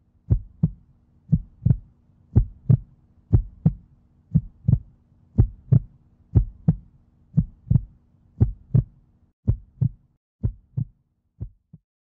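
Heartbeat sound effect: paired low thumps, lub-dub, about once a second over a faint steady hum, growing weaker and stopping near the end.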